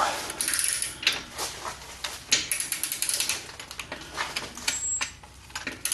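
Ratchet wrench clicking in quick runs of strokes as a nut on the new exhaust system is tightened.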